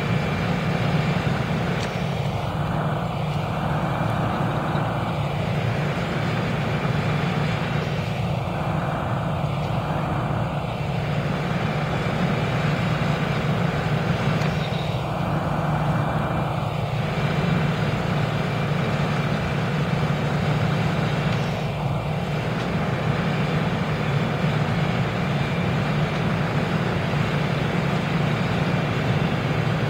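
Steady low rumble of a running vehicle engine, even in level throughout.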